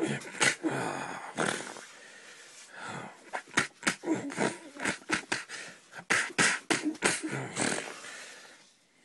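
A person voicing fight sound effects for a puppet battle: quick, rapid huffs, grunts and breathy whooshes made with the mouth, dying away near the end.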